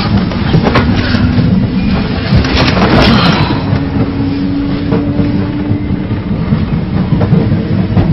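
Passenger train running, heard from inside the carriage: a steady rumble and rattle, with a few sharp clacks about three seconds in.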